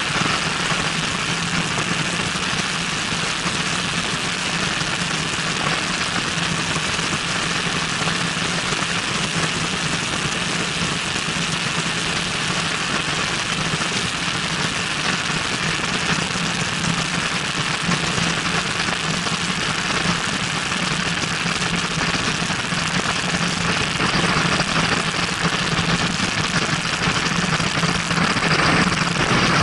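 Cessna 172N's piston engine and propeller running steadily on final approach, heard through heavy airflow rush on a camera mounted outside under the fuselage; the rush grows slightly louder over the last few seconds as the plane comes down just above the runway.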